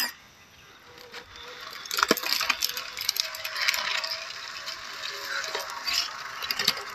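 MN99S Land Rover Defender RC crawler driving over dirt and dry leaves: its small electric motor and gears run with a faint whir, and its tyres crunch and crackle over the debris. This starts about two seconds in.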